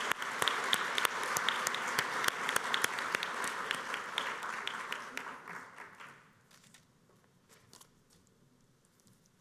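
Audience applauding, dense clapping that dies away about six seconds in, leaving only a few faint scattered knocks.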